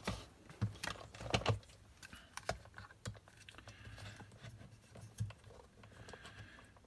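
Irregular light clicks and knocks of plastic as a voltage indicator's test probes and a plug-in socket test adapter are handled and pushed into place.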